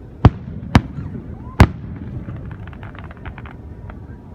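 Aerial fireworks bursting: three sharp booms within the first second and a half or so, followed by a quick run of crackles.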